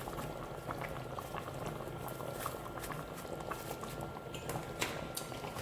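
Pot of Nigerian okra soup bubbling steadily on the boil, with many small irregular pops of bursting bubbles.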